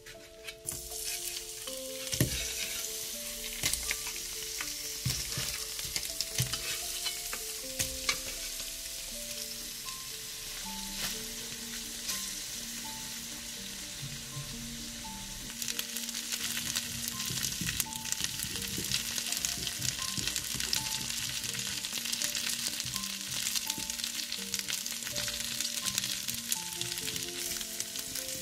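Food sizzling in hot oil in a frying pan, stirred with a utensil that knocks against the pan now and then; the sizzle sets in about a second in. A soft, slow melody of held notes plays underneath.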